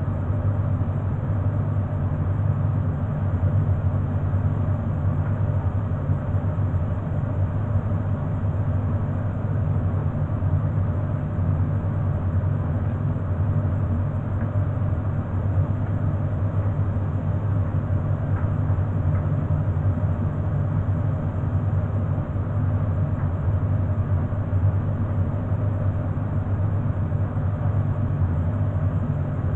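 Beko front-loading washing machine running in the last minute of its programme, the drum slowly turning and tumbling the laundry with a steady low motor hum.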